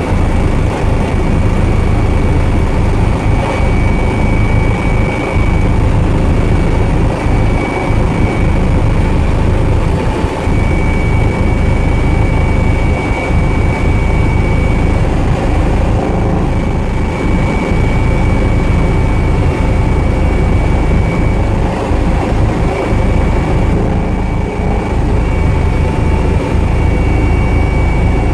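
Loud, steady cabin noise of a helicopter in flight: a deep drone from the engine and rotor, with a thin high whine that fades in and out every few seconds.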